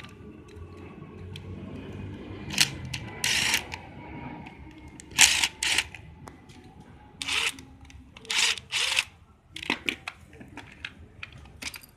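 Clicks and short scraping bursts of a screwdriver and the plastic housing of a used Hitachi hammer drill as its case is taken apart, about ten of them at irregular intervals.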